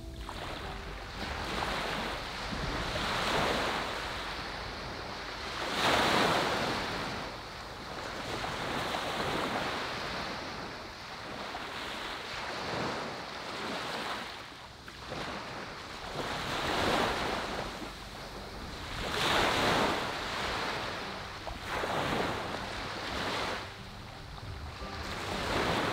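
Small waves breaking and washing up on a sandy, pebbly beach, the surf swelling and falling every two to three seconds.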